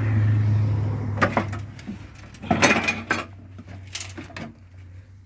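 Sharp clicks and clanks of metal microwave parts being handled and pried apart, in a loose cluster about two and a half to three seconds in, with a few single knocks around them. Under them a low steady hum swells and then fades over the first two seconds.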